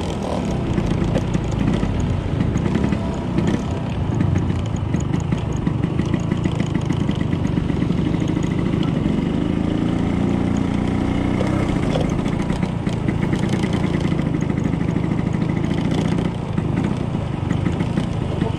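Classic Vespa scooter's two-stroke engine running steadily as it rides slowly in traffic, its pitch rising for a few seconds about halfway through.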